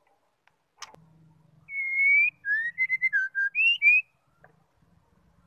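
White-rumped shama singing a short phrase of clear whistled notes that slide up and down, lasting about two seconds. A single sharp click comes just before the song.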